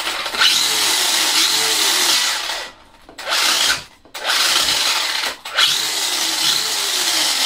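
The brushless electric motor and drivetrain of a Thunder Tiger Tomahawk ST stadium truck, converted from nitro, spinning the wheels in the air under throttle. It runs in four bursts with short gaps between them, and its pitch rises and falls as the throttle is worked.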